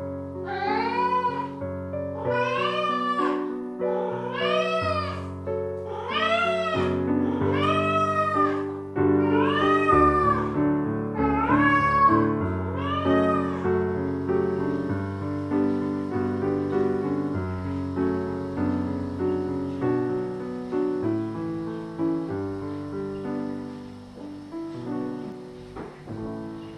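A cat meowing about a dozen times at an even pace, each meow rising and falling in pitch, over background piano music. The meows stop about halfway through and only the music goes on.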